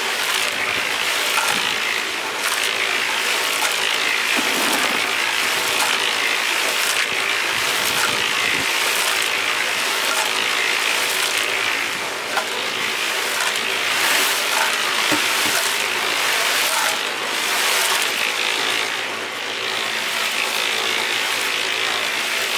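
Concrete mixer running, its drum churning and rattling a load of concrete with a steady motor hum underneath.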